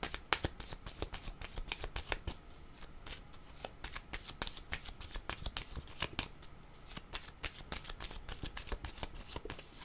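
A deck of tarot cards being shuffled by hand: a long run of quick flicks, densest in the first couple of seconds.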